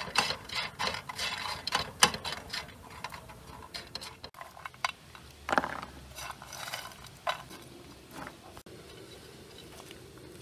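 Walnut kernels rattling and scraping in a dry frying pan as they are stirred by hand while being toasted, dense clicking for the first few seconds; then sparser clatters as the toasted kernels are scooped from the pan onto a wooden cutting board.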